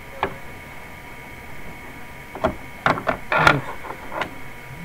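Several sharp clicks and knocks, one shortly after the start and then a cluster from about two and a half to four seconds in, the loudest about three and a half seconds in. A steady high hum runs underneath.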